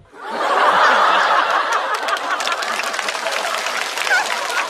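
Studio audience laughing at a punchline, swelling sharply right at the start and loudest about a second in, then carrying on steadily.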